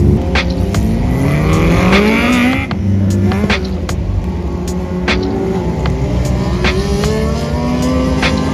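Several winged micro sprint car engines racing around a dirt oval, their pitch rising again and again as the cars accelerate down the straights, with frequent sharp pops.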